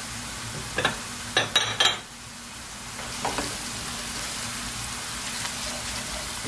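Diced onion, carrot and garlic sizzling in oil in a frying pan, with four sharp knocks of a utensil against the pan about a second in. From about three seconds a silicone spatula stirs the vegetables through the steady sizzle.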